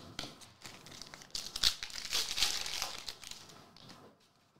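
Upper Deck Goodwin Champions trading cards rustling and crinkling as a stack is handled and cards are slid against one another. The rustle builds to its loudest about two seconds in, then fades.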